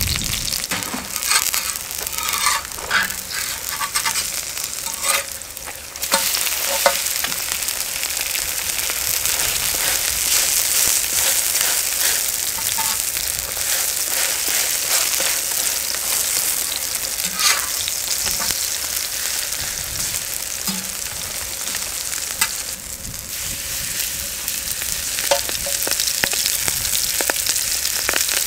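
Vegetable pancake batter sizzling steadily in hot oil on a griddle, with scattered light clicks and scrapes of a utensil. The sizzle thins briefly about five seconds in, then comes back at full strength.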